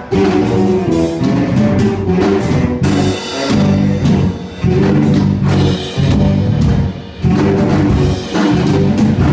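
Full band music: a drum kit keeps a steady beat under pitched instruments, with a few short breaks in the playing.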